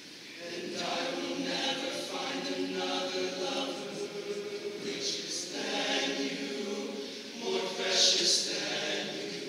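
An all-male choir singing sustained chords in many voices, coming in about half a second in and growing loudest near the end.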